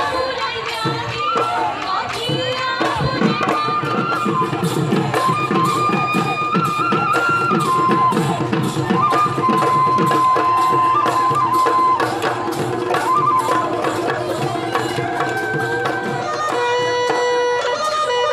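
Live Bihu folk music: dhol drums beaten in a fast, dense rhythm under a held melody line. A few seconds before the end, a pepa buffalo-horn pipe joins on steady held notes.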